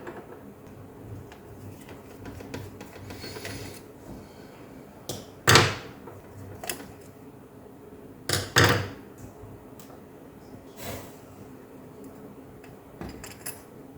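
Scattered knocks and clicks of hands handling the opened laptop and its parts, with quiet between them. The two loudest come about five and a half and eight and a half seconds in, and a few lighter taps come near the end.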